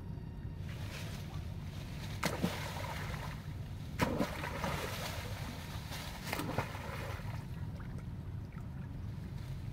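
Water splashing in a muddy river: a few sudden splashes, the loudest about four seconds in, with smaller ones around two and six seconds, over a steady low rumble.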